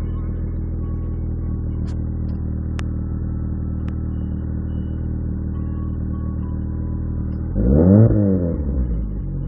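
1996 Mitsubishi Eclipse engine idling steadily, at an idle the owner finds higher than it should be. About seven and a half seconds in it is revved once, the pitch climbing and falling back to idle within about a second and a half.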